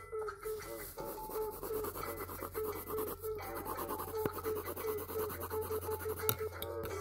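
Colored pencil scratching on paper in quick shading strokes, under background music with a steady run of short repeated notes.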